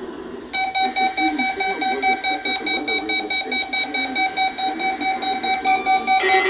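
Weather alert radio receivers sounding their alarm for a weekly test alert: a rapid pulsing beep, about four a second, starts about half a second in. A second, lower alarm tone joins near the end.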